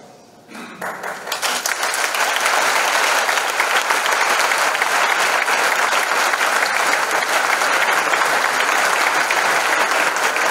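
A large audience applauding: the clapping starts about a second in, builds quickly and then holds as a steady, dense applause.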